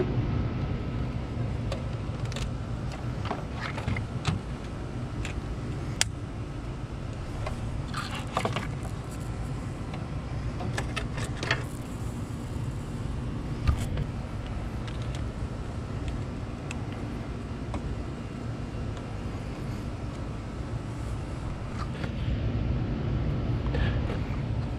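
Scattered plastic clicks, knocks and rattles as a BMW E90 335i coolant expansion tank and its hoses are pushed into place by hand, over a steady low background rumble.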